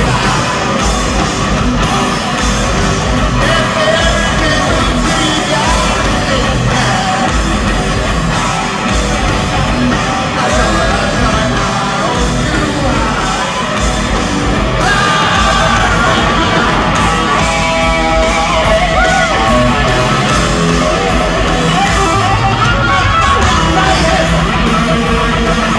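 Live heavy metal band playing loud in an arena hall: distorted electric guitar, drums and sung vocals.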